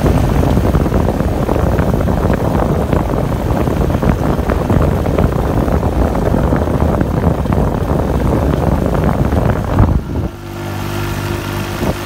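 Vehicle engine running under a loud, rough rushing noise. About ten seconds in, the rushing drops away suddenly and a steady engine hum remains.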